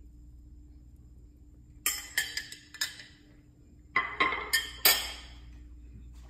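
A metal utensil clinking against dishware while another piece of cornbread is served: a quick run of about four ringing clinks about two seconds in, then about five more a couple of seconds later.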